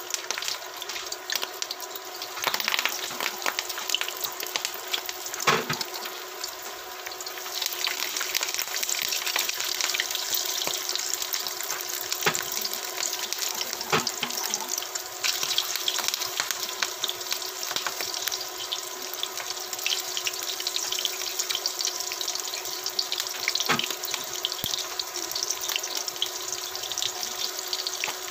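Hot cooking oil sizzling and crackling in a pan as breaded cabbage rolls are laid in to fry, the sizzle growing busier after a few seconds. A few sharp knocks come through it.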